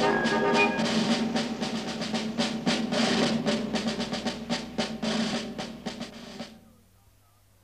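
Background music: a busy drum pattern over held pitched notes, fading away about six and a half seconds in.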